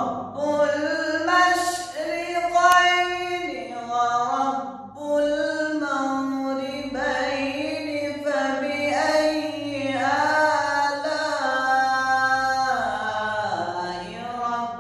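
A single voice reciting the Quran in slow, melodic chant, holding long drawn-out notes that slide between pitches, with short pauses for breath.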